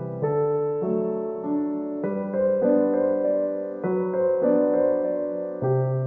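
Background music: a gentle solo piano piece, sustained chords and notes changing every second or so.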